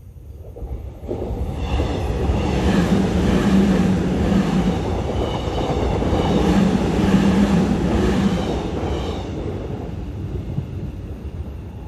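Gyeongui–Jungang Line electric commuter train passing close by on ballasted track: a rumble of wheels on rails with a low hum, building about a second in, loudest through the middle and fading as the last car pulls away.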